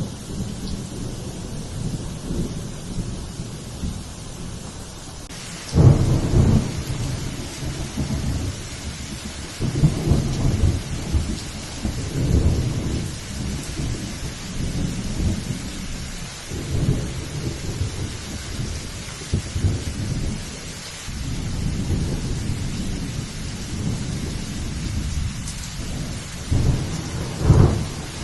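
Steady heavy rain hiss with repeated rolling thunder rumbles that swell and fade every few seconds; the loudest comes about six seconds in, another near the end.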